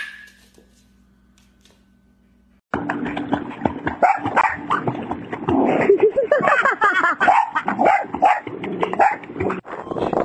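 A short high chirp right at the start, then a dog barking and whimpering in a rapid run of bending, pitched calls over rough background noise, loudest a little past the middle.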